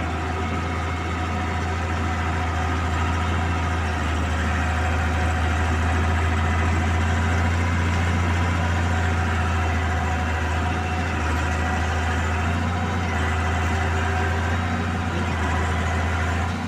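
Bulldozer's diesel engine running steadily, with a strong low hum.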